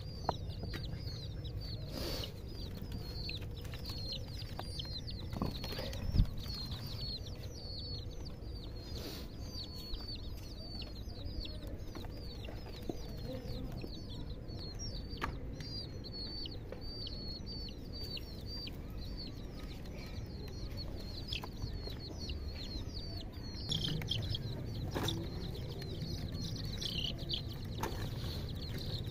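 Baby chicks peeping continuously, a dense stream of short, high, falling cheeps several times a second. A single sharp knock about six seconds in.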